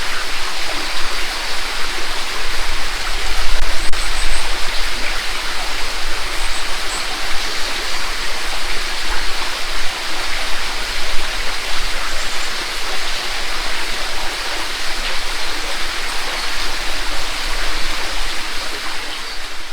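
Mountain creek running steadily over a rocky bed and small falls, an even rushing babble of water.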